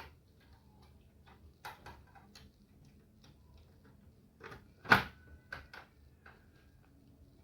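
Scattered light plastic clicks and taps as a new laser scanner unit is set into an HP LaserJet 1020's frame, with one sharp knock about five seconds in.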